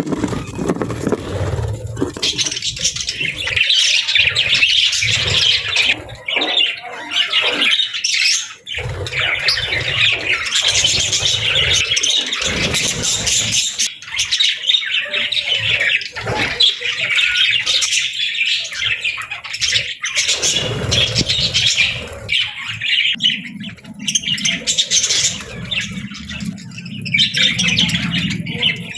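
Budgies chirping and squawking in near-continuous, busy chatter, with a low rumble coming and going underneath.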